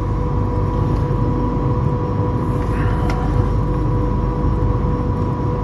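Steady low drone of running industrial machinery, with a constant whine at two pitches over it.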